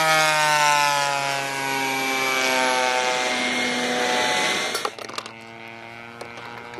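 The single-cylinder two-stroke gas engine (DA-50) of a giant-scale RC P-51 Mustang runs at high throttle on a fly-by, its pitch falling slowly as the plane passes and moves away. About five seconds in, the sound drops sharply quieter and settles to a steady, lower drone.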